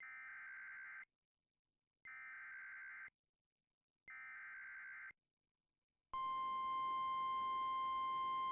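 Emergency Alert System SAME header: three harsh one-second digital data bursts, each a second apart, that encode the severe thunderstorm warning. About 6 s in, a louder single steady tone starts over a hiss. This is the alert's attention signal, the 1050 Hz warning alarm tone of NOAA Weather Radio.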